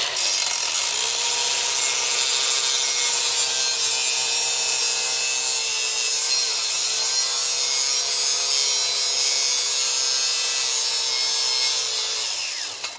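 Angle grinder with a thin cut-off wheel cutting through stainless steel tubing: a steady high whine with a hiss of grinding. The pitch dips briefly under load about six and a half seconds in, and the sound dies away near the end as the grinder comes off the cut.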